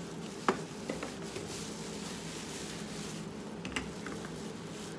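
A few light clicks and knocks as small metal cans of cat food are handled and set down, the sharpest about half a second in, over a faint steady hum.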